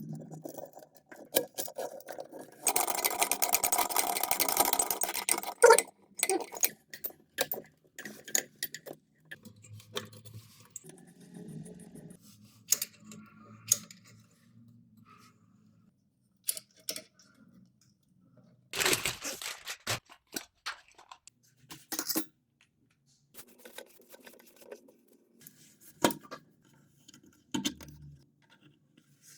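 Plumbing tools and fittings being handled during a washbasin installation: scattered clicks and clinks of metal and hard parts, with a louder rasping burst of about three seconds a few seconds in and a shorter one about two-thirds of the way through.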